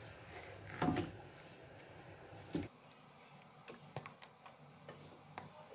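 Raw chicken pieces being put into a wok of simmering spiced broth. Two louder wet thuds come about one and two and a half seconds in, followed by several light ticks against the wok.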